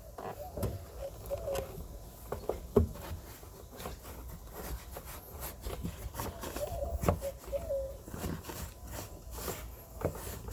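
Plastic clicks and knocks from a turn-signal bulb socket being twisted and pushed back into a taillight housing, which it struggles to seat tightly. Twice a wavering whine, about a second long, is heard over the clicking.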